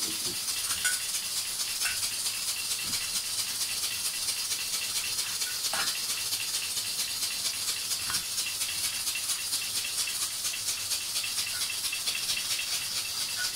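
Steady crackling hiss of a roti cooking on a hot iron tawa over a gas flame, with a few light clicks of metal tongs turning it.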